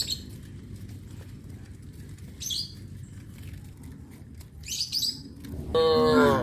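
Small birds chirping in short, high bursts about every two seconds over a low steady background. Near the end comes a loud cow moo that falls in pitch.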